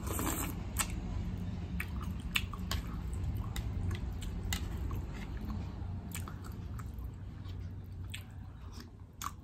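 A person slurping up hot noodles from a spoon in a short burst, then chewing with many wet mouth clicks and smacks, over a low steady hum.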